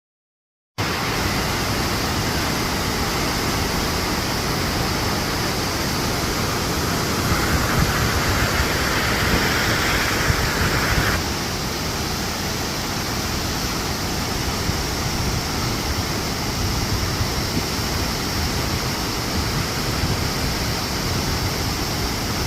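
Waterfall: a loud, steady rush of falling water that starts suddenly and cuts off at the end. A brighter hiss rises for a few seconds around the middle, then drops back.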